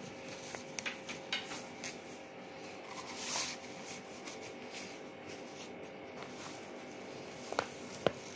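Soft rubbing and small taps of a fabric blood pressure cuff being handled and wrapped around an upper arm, with one brief scratchy rasp about three seconds in. A faint steady hum lies underneath.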